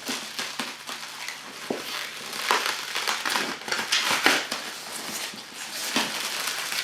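Plastic shrink wrap on a boxed rifle crinkling and crackling in irregular bursts as the box is handled. The handling is loudest around the middle.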